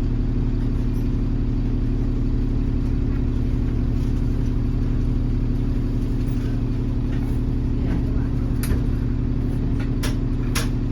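Diesel engine of an Alexander Dennis Enviro400 Trident double-decker bus running steadily at an even pitch, with a few short clicks and knocks in the last couple of seconds.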